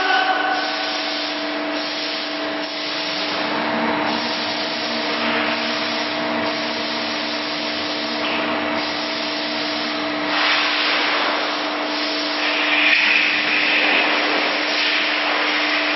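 CNC hydraulic guillotine shear running idle: its hydraulic pump and motor give a steady hum and hiss with a low steady tone, and nothing is being cut. Some swells in the noise come and go.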